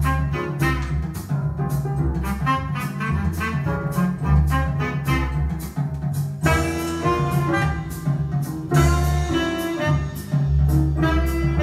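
Jazz played from a vinyl LP on a Micro Seiki RX-5000 turntable, heard over loudspeakers: horn lines over a walking bass and steady drums, the horns growing fuller about six seconds in.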